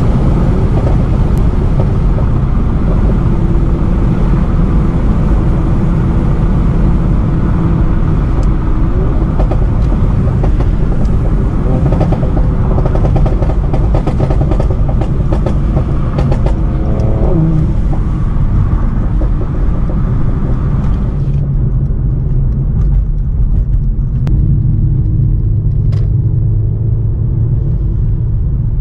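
Tuned Mercedes-AMG C43's twin-turbo V6 and exhaust on the move. Engine pitch rises and falls, with a run of exhaust crackles and pops in the middle. About 21 seconds in, the sound turns abruptly duller.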